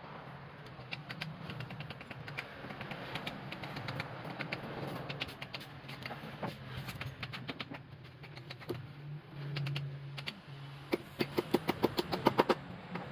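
Light clicks and taps from hand work, over a low steady hum, with a quick run of sharp, louder taps near the end.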